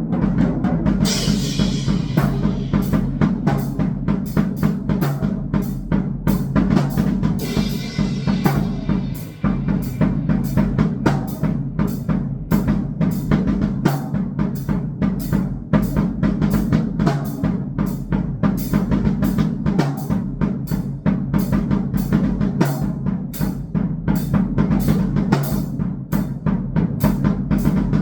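Drum kit played in a fast, busy pattern of kick, snare and stick hits over a steady low drone, with cymbal washes about a second in and again around the eighth second.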